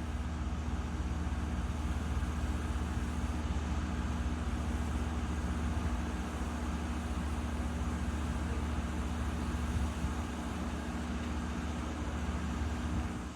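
Steady running noise of an electric train, with a constant low hum under an even rumble.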